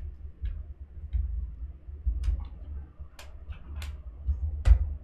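Irregular clicks of someone working a computer's mouse and keys, about six or seven in a few seconds, the loudest near the end, over a low rumble of handling on the desk.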